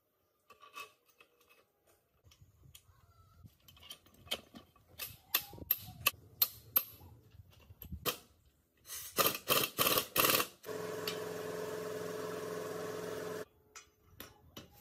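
Workshop work on metal parts: a run of sharp knocks and taps, then a steady machine hum for about three seconds that starts and cuts off abruptly.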